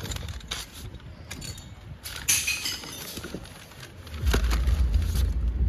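Glass bottles dropped one at a time through the opening of a street bottle bank, each landing inside with a clink or crash; the loudest comes about two seconds in. A steady low rumble sets in about four seconds in.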